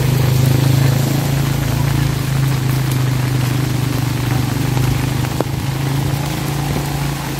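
Rain falling steadily, with a strong steady low hum under it that weakens near the end.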